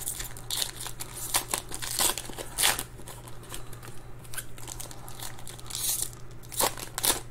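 Foil trading-card pack wrapper being crinkled and torn open by hand, in irregular short rustles.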